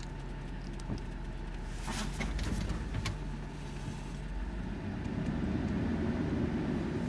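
Motor vehicle driving, heard from inside the cab: a steady engine hum and road noise, with a few light rattles about two to three seconds in and a louder rumble in the second half.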